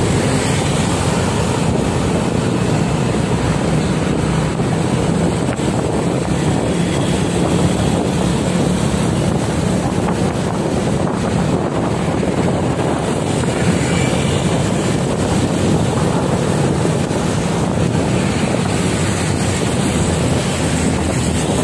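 Steady wind rush over the microphone mixed with a motorcycle engine's hum and tyre noise while riding along a road.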